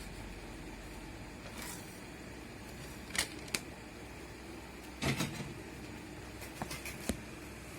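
A few short, sharp clicks and knocks of small parts or tools being handled: two about three seconds in, a louder pair about five seconds in, and a quick run of light clicks near the end, over a steady background hum.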